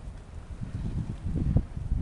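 Wind buffeting the microphone: an uneven low rumble that grows louder partway through.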